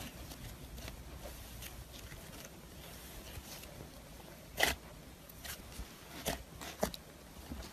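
Hands squishing and kneading a thick, fluffy white slime: soft crackling throughout, with a few louder sharp pops in the second half, the loudest about halfway through.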